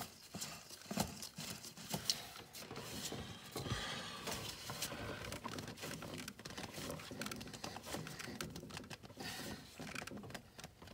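A gloved hand handling a spin-on oil filter at the engine's filter adapter: scattered light clicks and knocks with scraping and rustling.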